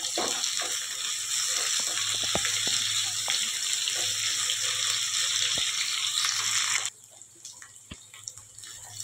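Potato, cauliflower and carrot pieces sizzling steadily in hot ghee and oil in a kadhai, with small clicks and scrapes from a silicone spatula stirring them. The sizzle cuts off suddenly about seven seconds in, leaving only faint clicks.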